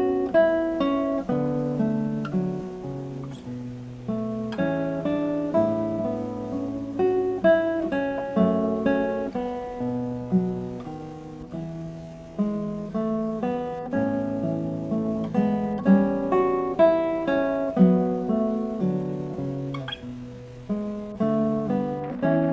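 Acoustic guitar music: a solo fingerpicked melody over bass notes, played as background music.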